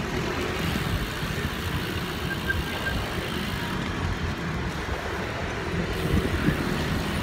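Steady street noise heard while riding a bicycle: wind on the microphone over road traffic.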